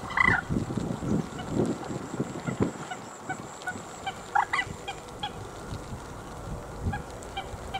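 A few short bird calls: one right at the start and two close together about four and a half seconds in, with wind buffeting the microphone underneath.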